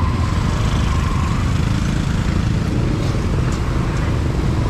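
Busy street traffic with motor vehicle engines running close by, a steady low rumble with no break.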